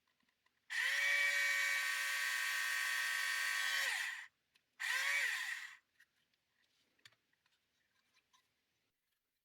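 Tamiya Electric Handy Drill's small electric motor running with a steady high whine for about three and a half seconds and then spinning down. About half a second later it gives a second short burst of about a second. Faint handling ticks follow.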